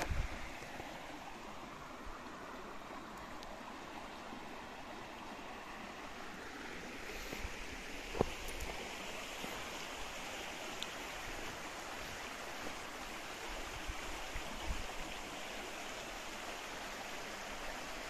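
A creek's running water, a steady rushing sound, with a single sharp knock about eight seconds in.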